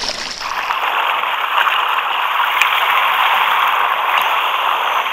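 Tide water rushing against and streaming into an anchored sit-on-top fishing kayak, a steady loud rush that sets in about half a second in.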